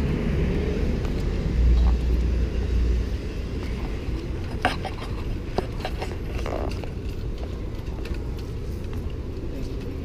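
City street traffic: a steady low rumble of passing vehicles, heaviest in the first few seconds, with a few short sharp clicks about halfway through.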